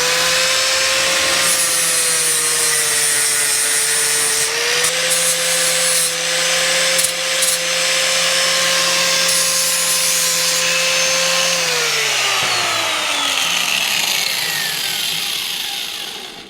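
Angle grinder fitted with a flap disc, running at speed and grinding metal to clean it up, with the motor's steady whine under the rasp of the disc. About twelve seconds in it is switched off and the whine falls away as the disc spins down.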